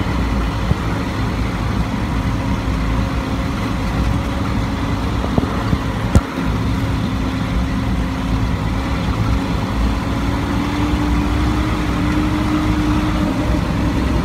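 Large truck's engine running, heard from inside the cab while it is driven, with road rumble beneath. A sharp knock comes about six seconds in, the engine note drops there and then slowly climbs.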